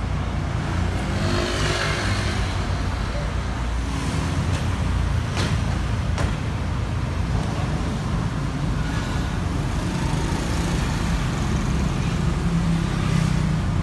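Steady low rumble of motor vehicles: a crane truck's engine running and street traffic. Two sharp knocks come a little under a second apart near the middle.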